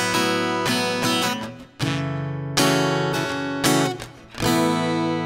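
Acoustic guitar strumming chords in a song's instrumental passage, with a chord change about two seconds in. Near the end a single chord is struck and left to ring.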